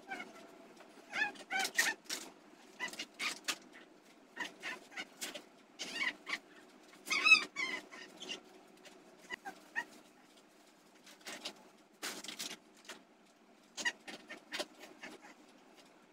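Young baby fussing in a string of short, high cries, some with a wavering pitch, the loudest about seven seconds in, over a steady low hum.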